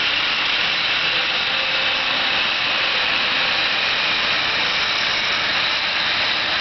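Compressed-air paint spray gun spraying paint onto a fiberglass hard top: a steady hiss of atomizing air that runs without a break.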